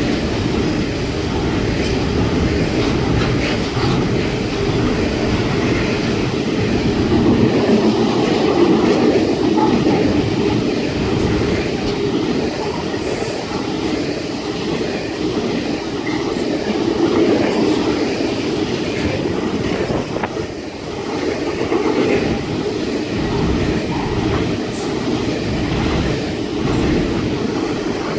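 A long freight train of hopper wagons rolling steadily past on the rails, with a couple of brief high wheel squeals.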